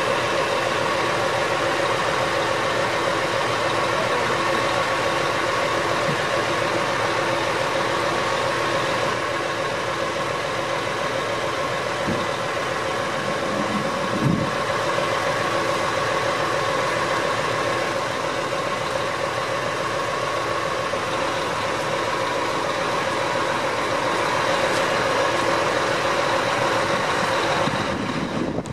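Lorry-mounted crane's engine running steadily, with a steady whine over it. A brief knock about halfway through.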